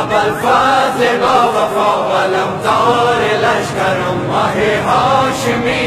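Voices chanting a Shia devotional recitation in chorus, a melodic sung line carrying on without a break.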